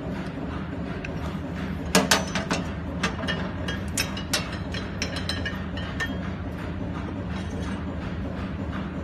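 Steady low mechanical drone, with a burst of metallic clicks and knocks about two to five seconds in as the cabinet of a bench-top planetary ball mill is handled and opened.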